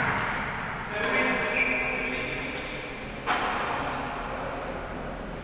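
A badminton racket strikes the shuttlecock once, about three seconds in, with a sharp crack that echoes around a large indoor court.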